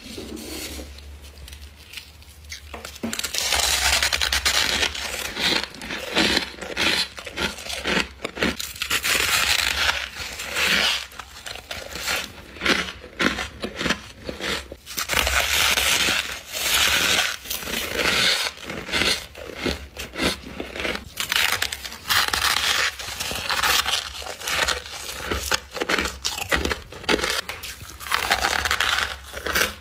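Close-up crunching of a person biting and chewing powdery frost: rapid, irregular crisp crunches and crackles. It is quieter for the first few seconds, then louder.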